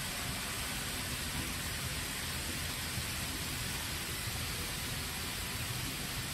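N scale model Shinkansen train running along the layout track: a steady rolling hiss with a low motor hum and no distinct clicks.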